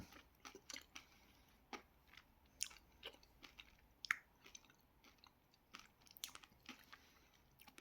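Faint, scattered wet mouth clicks and smacks of a person chewing and sucking a soft, gooey sweet that clings to the teeth.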